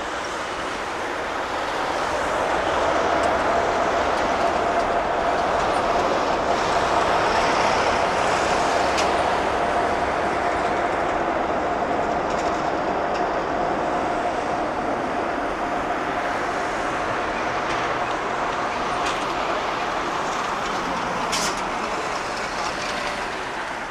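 Jet engine roar of an Airbus A380's four turbofans as the aircraft passes, with a steady whine held over the roar. It builds over the first few seconds, then slowly fades.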